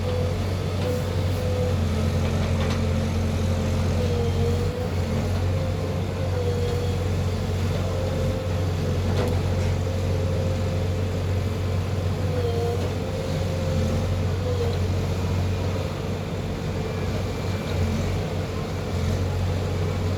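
Heavy diesel engine running steadily, with a whining tone above it that dips briefly in pitch several times.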